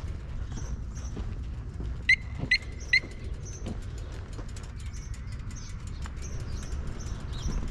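Three short, sharp beeps about half a second apart over a low, steady rumble.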